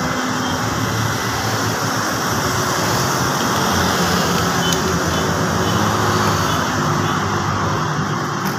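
Steady droning mechanical noise, like a running motor or fan, with a few faint clicks.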